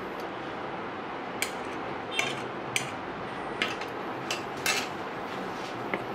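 A wooden spatula clacking against a frying pan, about six sharp knocks spread through the middle of the clip, over a steady background hiss.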